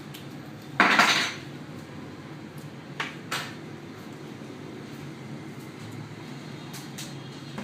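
A brief clatter of small hard objects about a second in, then two sharp clicks a third of a second apart about three seconds in, with faint ticks later: tools and parts being handled during a phone teardown.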